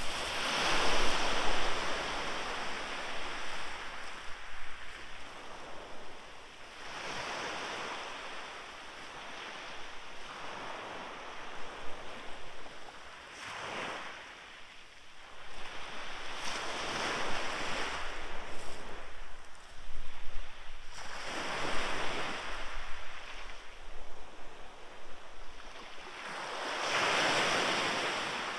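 Small waves breaking and washing up a shingle beach, a surge every few seconds, with some wind on the microphone.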